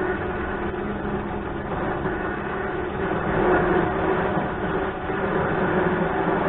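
A motor running steadily with a low hum, with no sharp knocks or breaks.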